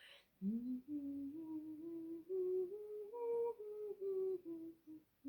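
A woman's voice softly humming a stepwise solfège scale, rising note by note to ti and then stepping back down toward do. This is the repeat of the do-re-mi…ti-la…do line just sung.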